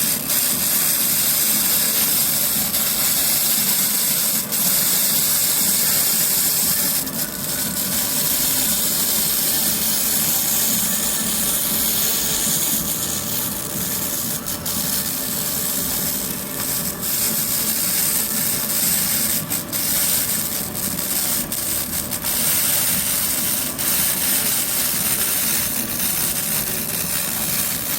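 200 W pulsed laser cleaner ablating solidified oil buildup off a metal machine surface: a steady, loud hissing crackle, broken by a few brief gaps where the beam pauses.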